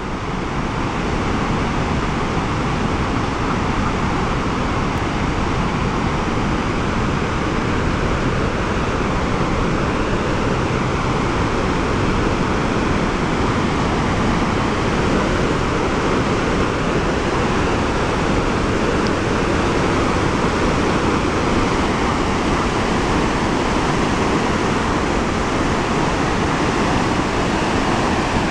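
Spokane River in spring flood, released through the wide-open gates of Post Falls Dam and pouring down a rocky gorge: a loud, steady rush of whitewater.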